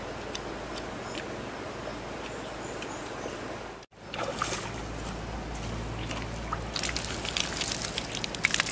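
Steady outdoor water ambience with faint ticks, then after a short break, water thrown onto campfire embers sizzling and spattering with dense crackles that grow louder near the end as the fire is put out.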